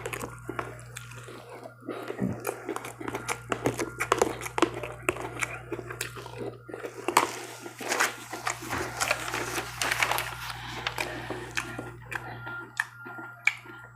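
Close-up chewing of crunchy cereal: a quick, irregular run of crunches and small clicks, over a steady low hum.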